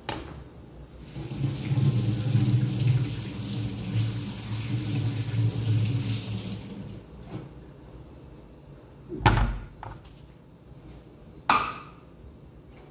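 Kitchen tap running into the sink for about six seconds, then a dull thump and, two seconds later, a sharp clank of kitchenware.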